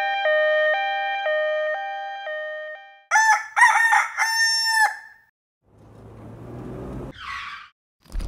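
A sequence of sound effects. First a steady electronic tone pulsing in short even beats. About three seconds in comes a crowing, rooster-like call in four short parts, and around six seconds in a low rumble ends in a brief hiss.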